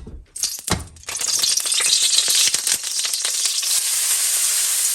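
Noodles going into hot oil in a wok and frying with a loud, steady sizzle that starts about a second in, after a few short clatters.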